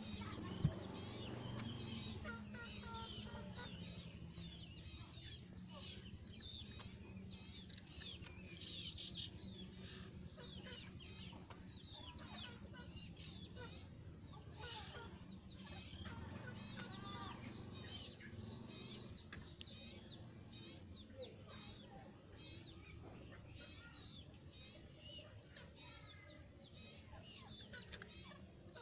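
A jongkangan bird in molt giving short, scratchy chirps again and again. Its voice is hoarse and it does not break into full, continuous song, as a molting bird does. A steady low hum runs underneath.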